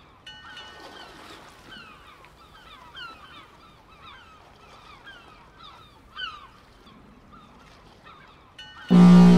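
A flock of birds calling over and over in short falling cries. Near the end a loud, deep steady tone cuts in suddenly.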